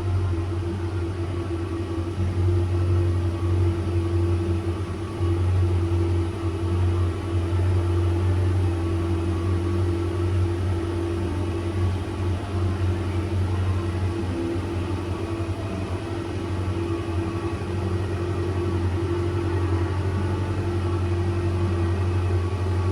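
Car engine idling: a steady low drone that holds even throughout, with no revving.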